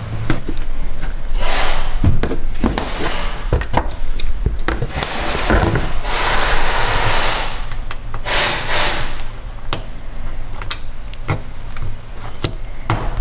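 Hands handling and seating the plastic engine cover and trim on a Chevy 5.3 V8: a series of rubbing and scraping sounds with scattered clicks and knocks, the longest scrape about six seconds in.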